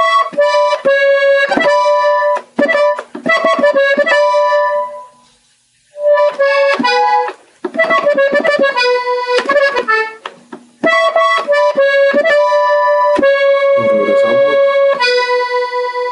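Gabbanelli button accordion playing a slow melody on the treble buttons, with trills, in short phrases. The playing stops for about a second around five seconds in, and again briefly near eleven seconds.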